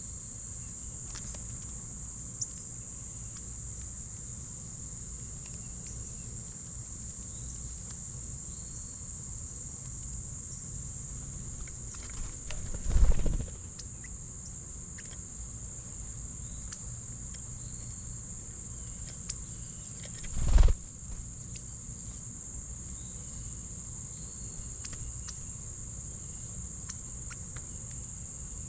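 Steady, high-pitched chorus of insects, an unbroken even trill. Twice, about seven seconds apart, a brief loud low rumble or bump hits the microphone.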